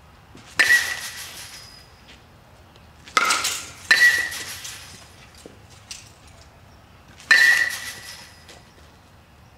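Metal baseball bats striking baseballs: four sharp pings, each ringing and fading for about a second. One comes half a second in, two come close together around three and four seconds in, and one comes past seven seconds.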